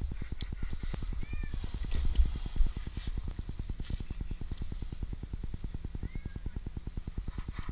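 A kitten stranded up a tree meowing, two short calls, about a second and a half in and again near six seconds. Under it runs a steady low, rapid throb of about a dozen pulses a second, with a few faint clicks.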